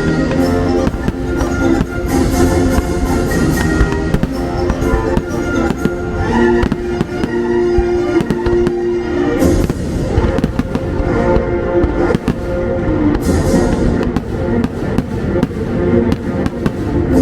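Fireworks bursting and crackling in quick succession over loud orchestral music from the show's soundtrack.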